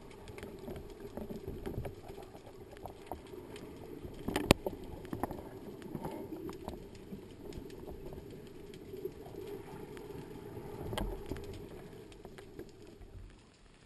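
Underwater sound picked up by a camera mounted on a speargun: a steady low rush with scattered clicks and knocks as the gun and the speared fish are handled. The sharpest knock comes about four and a half seconds in.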